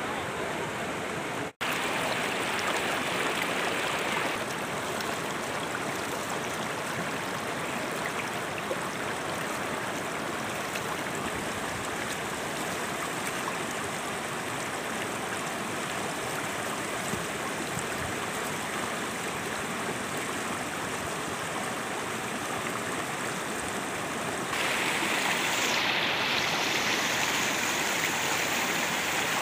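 Shallow rocky stream running over stones: a steady rush of water. It cuts out for an instant about a second and a half in, and gets louder and brighter near the end.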